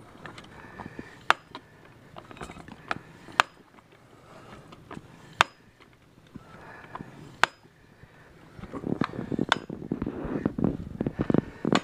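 Hill high-pressure hand pump being stroked while filling a PCP airgun near 3,000 psi: sharp metallic clicks at the hard stops, about one every one to two seconds, followed near the end by a denser stretch of knocking and rustling.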